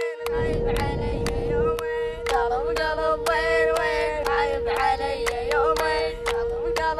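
Background music: a sung melody that bends and slides in pitch over a steady drone and a regular beat of about three strokes a second.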